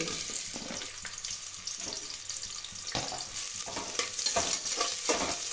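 Sliced onions sizzling as they drop into hot oil in an aluminium pressure cooker, the hiss starting suddenly as they go in. A spoon then scrapes and knocks against the pot as they are stirred.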